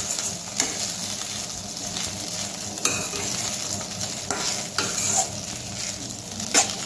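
Poha (flattened rice) being stirred and mixed with a metal spatula in a stainless steel kadhai over steady frying sizzle, the spatula scraping and clicking against the pan now and then.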